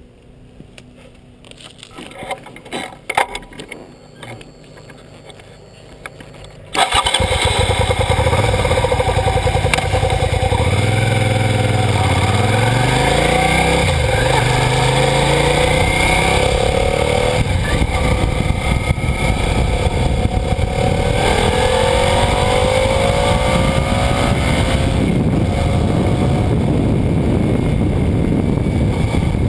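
Suzuki SV650's V-twin engine and wind noise heard from low by the rear wheel. The first several seconds are quieter, with scattered knocks. About seven seconds in the sound jumps up sharply, and the engine pitch rises in steps as the bike accelerates through the gears, then falls later.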